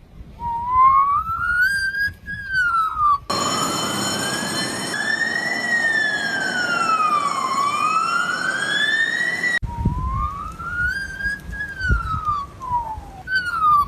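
Australian magpie mimicking a fire-engine siren with slow, whistled wails that rise and fall. About three seconds in, a louder, smoother siren wail with background noise cuts in suddenly. It stops just as suddenly about six seconds later, and the bird's whistled wails return.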